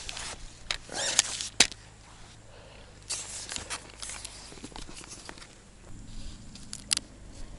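Hands handling small plastic fishing tackle cases, rustling, with a few sharp clicks and taps. The loudest clicks come about a second and a half in and again near the end.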